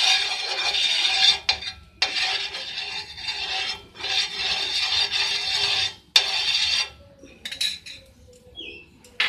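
A brush spreading oil over a frying pan, rubbing across the pan surface in four long strokes with short breaks between them. The rubbing stops about seven seconds in, leaving a few faint clicks.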